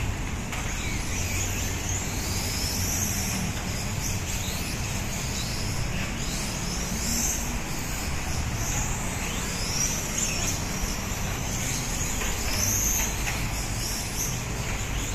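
Electric RC racing cars run laps, their motors and gears making high-pitched whines that rise and fall again and again as the cars speed up, brake and pass by.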